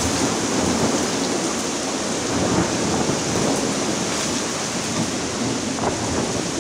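Torrential thunderstorm rain, a dense steady downpour, with thunder rumbling.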